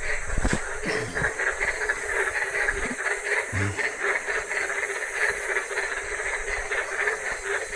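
Dense chorus of many frogs calling together, a steady rapid pulsing in a low band and a higher band. A few brief low thumps sound in the first few seconds.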